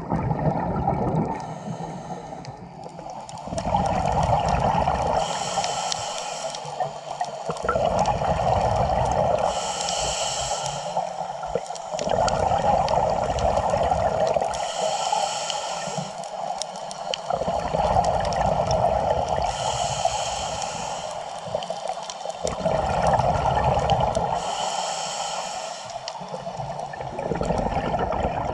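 Scuba diver breathing through a regulator underwater: a short hiss on each inhale, then a long rumbling rush of exhaled bubbles, repeating at an even pace about six times.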